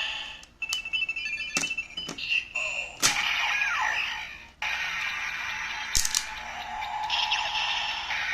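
Plastic clicks as a Kamen Rider Den-O Ridewatch toy is turned, pressed and snapped into a Ziku-Driver toy belt, with electronic beeps. From about three seconds in, the belt's electronic sound effect plays and settles into a looping standby tune through its small speaker, with another click about six seconds in.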